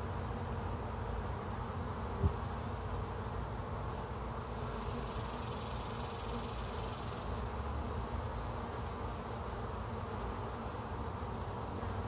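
Honey bees buzzing in a steady, dense hum as many bees cluster and fly around a trap-out cone and bait hive entrance. A single sharp click about two seconds in, and a faint high hiss for a couple of seconds midway.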